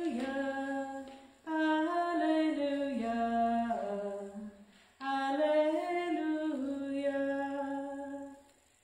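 A single voice singing unaccompanied in three long, slow phrases of held notes, the last ending near the end: the Gospel acclamation sung before the Gospel reading at a Eucharist.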